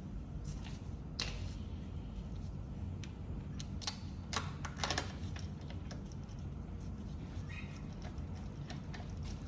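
A few sharp, short clicks and clinks, bunched together around the middle, over a steady low hum.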